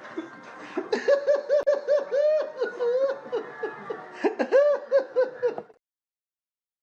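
High-pitched laughter sound effect: a rapid string of 'ha-ha' bursts, about four or five a second. It starts about a second in and cuts off abruptly about a second before the end.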